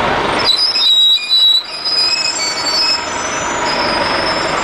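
High-pitched brake squeal from a city transit bus as it slows through a turn: several thin tones that shift and come and go, starting about half a second in, over street traffic noise.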